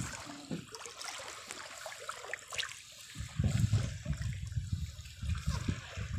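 Shallow seawater splashing and trickling around a mesh scoop net held in it. From about three seconds in, an irregular low rumble rises and becomes the loudest sound.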